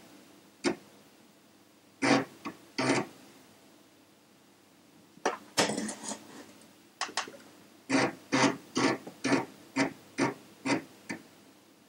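Amiga 1000's internal 3.5-inch floppy drive reading the Workbench 1.3 disk: a run of short, uneven mechanical grinding bursts as the head seeks and reads, packed closer together about halfway through, over a faint steady hum.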